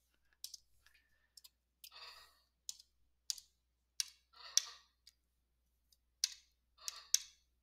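Scattered sharp clicks of a computer pointing device, about a dozen, with a few soft breaths between them.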